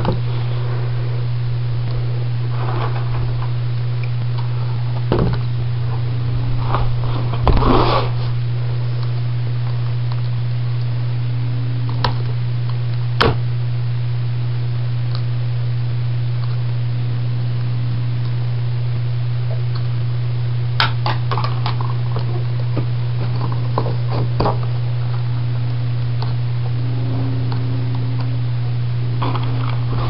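Scattered clicks and knocks as a homemade mouse-trap device in a small wooden box is handled and set by hand, over a steady low hum.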